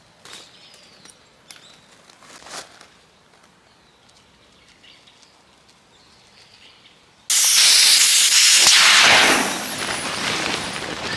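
Air rushing out of a Feelgood air shelter's inflatable air beam through its opened valve as the tent is deflated. It is a sudden loud hiss that starts about seven seconds in, then eases after about two seconds but keeps going. Faint clicks come before it.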